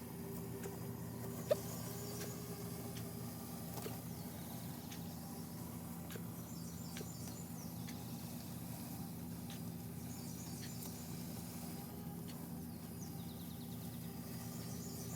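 Mammotion Luba 2 robotic lawn mower running steadily, its electric motors giving a low, even hum. A few short high bird calls come in over it, about four times.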